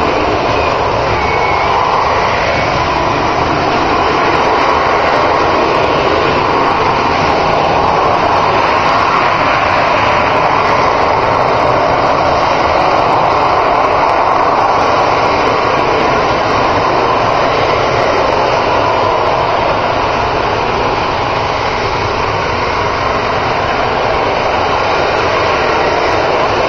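Aircraft engine noise: a loud, steady roar that holds almost level throughout, easing slightly near the end.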